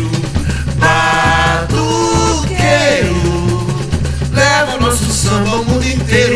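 Brazilian samba percussion group playing, with deep bass drums beating a steady repeating pattern under a singing voice.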